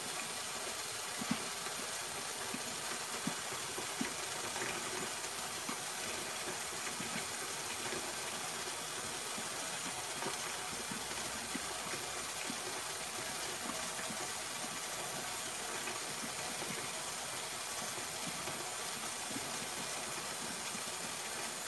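A steady, even hiss, with occasional faint clicks and taps of fingers picking the soft bones out of canned salmon in a stainless steel bowl.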